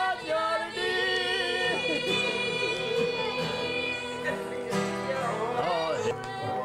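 A group of people singing a Christmas carol together, with instruments playing along.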